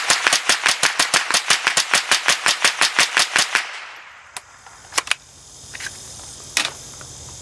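Suppressed Smith & Wesson M&P 15-22 .22 LR rifle fired rapidly in semi-automatic, about six to seven shots a second, stopping about three and a half seconds in. A few light clicks follow.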